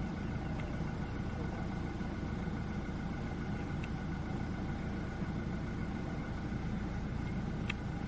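A vehicle engine idling steadily, a low rumble with a few faint clicks, the clearest near the end.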